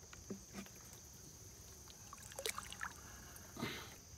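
Faint ticks and small knocks from the boat and fishing tackle, then a brief splash a little after three and a half seconds in as a hooked fish is pulled from the water.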